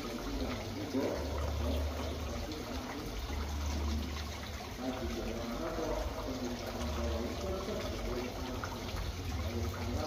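Water trickling and gurgling steadily, with a few low rumbles underneath.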